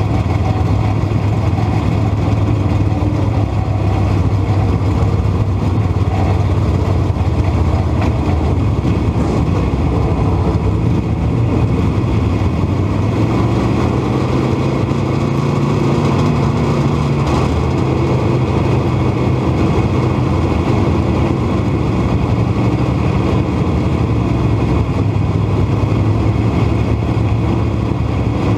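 Dirt modified race car's V8 engine running at low, steady speed, heard from inside the cockpit, with the engines of the surrounding pack mixed in.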